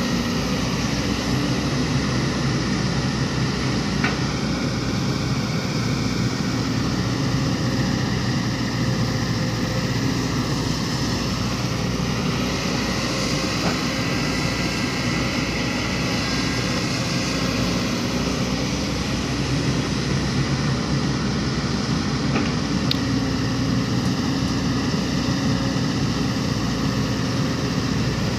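Diesel engine of heavy construction equipment running steadily at a constant level, with a faint whine that drifts slowly up and down and a few faint clicks.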